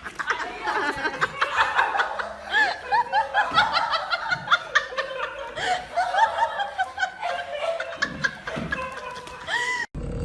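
People laughing in a long run of quick, high giggles that stops abruptly near the end.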